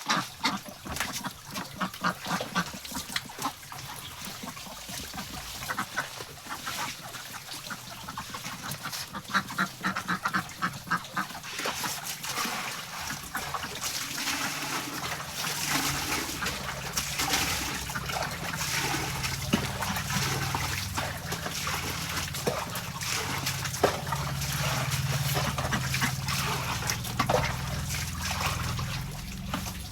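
A flock of penned ducks quacking over and over in short calls. From about halfway a steady low hum joins in underneath.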